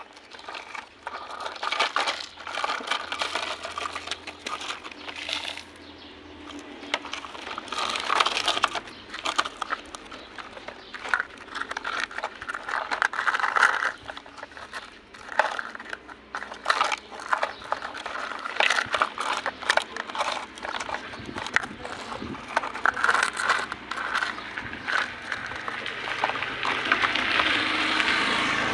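Toys being handled and played with: irregular clicking, rattling and scraping of small hard toys moved about on a surface, with denser clusters of clicks now and then and a longer rasping scrape near the end.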